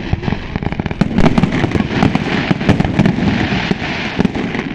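Fireworks display: a dense, unbroken barrage of rapid bangs and crackles, with a hissing crackle swelling in the middle and fading near the end.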